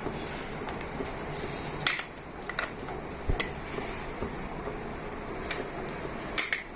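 Hard plastic clicks and knocks of 3D-printed skull parts being handled and fitted together: about six short, sharp taps spread over a few seconds, two close together near the end, over a steady background hiss.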